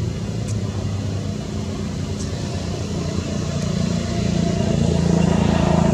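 A motor vehicle's engine running steadily, growing louder toward the end as it draws near.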